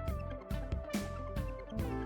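Background music with a steady beat under held melody notes and a bass line.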